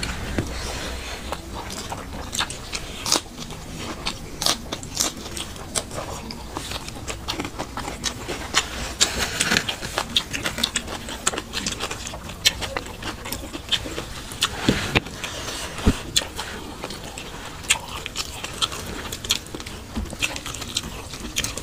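Two people eating rice and curry with their hands: chewing and lip-smacking, with fingers squishing and scraping rice on the plates. A steady stream of irregular wet clicks and smacks.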